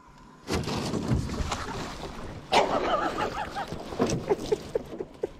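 Sudden splashing about half a second in as a big bass is scooped out of the water in a landing net, followed by water streaming off the lifted net and knocks against the aluminium boat hull.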